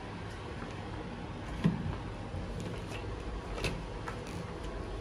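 A glass sliding balcony door being opened and stepped through: a sharp click about a second and a half in and a lighter knock near four seconds, over a steady low rumble.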